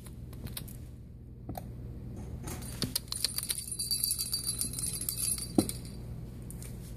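Small jingle bell in a cat toy ringing, with light clicks and rattles. The ringing is clearest for a few seconds in the middle.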